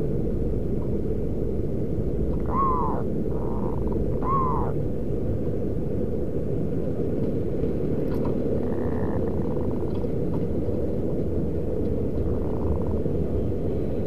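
Zebra doves calling: a few soft coo notes and two short arched calls about two and a half and four seconds in, over a steady low rumble.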